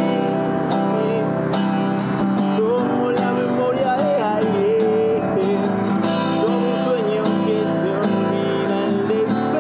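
A song played on a strummed steel-string acoustic guitar, with a melody line that bends and slides in pitch above the chords.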